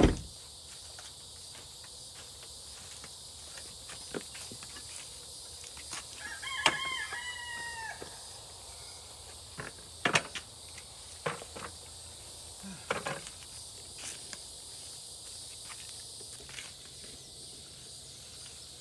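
A rooster crowing once, about six and a half seconds in, its call dropping at the end. Sharp clicks and knocks are scattered around it, the loudest at the very start.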